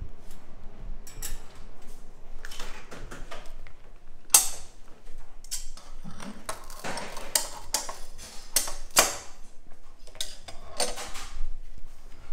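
Irregular clacks and scrapes of metal tools on a candy-making table as hot sugar is worked, with one sharp knock about four seconds in.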